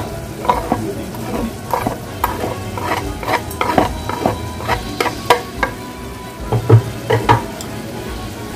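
A metal utensil scraping chopped greens off a wooden cutting board into a steel pot: a quick run of sharp knocks and scrapes. Underneath is the steady sizzle of chili sauce cooking in the pot.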